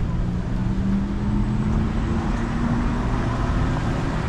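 City street traffic at an intersection: a vehicle's engine runs and rises slowly in pitch as it pulls away, over a steady low traffic rumble.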